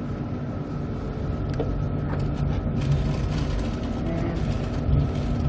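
Queensland Rail Spirit of the Outback passenger train running, heard from inside a carriage: a steady low rumble and rattle with a constant hum and a few light knocks.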